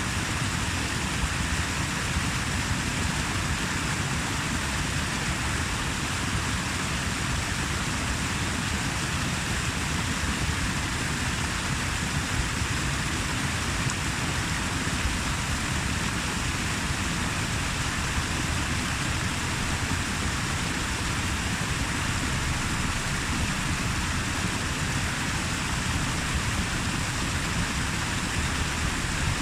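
Water rushing steadily, an even noise with no breaks.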